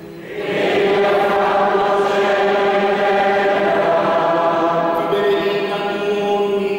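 Many voices of a church congregation chanting together in a cathedral, a sung liturgical response before the final blessing of the Mass. The singing swells about half a second in and holds on a steady line for several seconds before easing off near the end.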